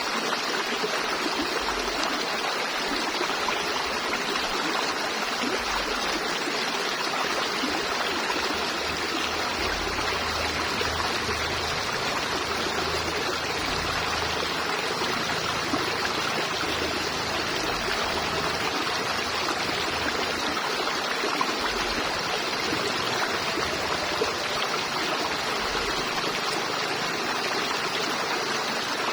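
A river flowing over rocks: a steady rushing and babbling of running water.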